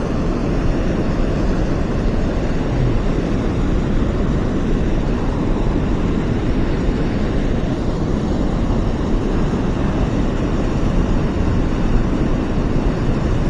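Steady rushing of river water pouring over a low dam and churning through the white water below it, a constant even noise heaviest in the low end.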